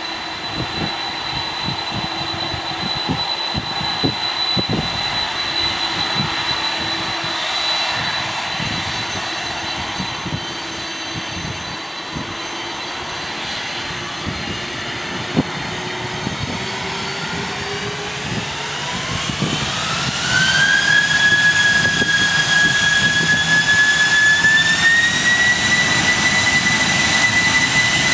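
Boeing 747-400's four General Electric CF6 turbofans running at low thrust with a steady whine as the jumbo taxis onto the runway. Past the middle they spool up to take-off thrust: the whine rises in pitch and the sound grows clearly louder, then holds.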